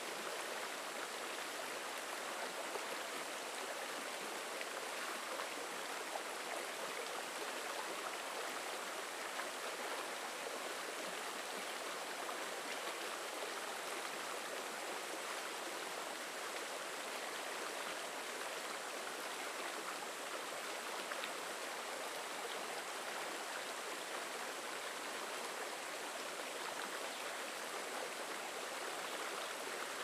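Shallow rocky stream flowing over stones and small riffles: a steady, even rush of running water.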